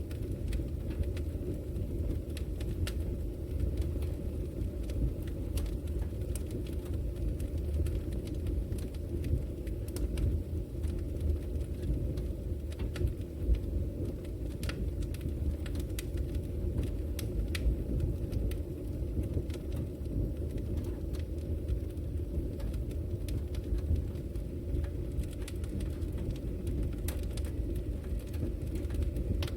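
Fire burning in a fireplace: a steady low rumble with frequent irregular sharp crackles and pops.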